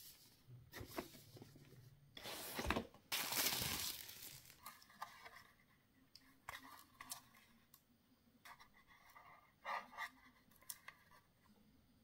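Cardboard packaging being opened, with a loud scraping rush of cardboard sliding about two to four seconds in. Then comes the rustle and crinkle of a plastic wrapper being taken off a USB hub, with scattered small clicks and taps from handling.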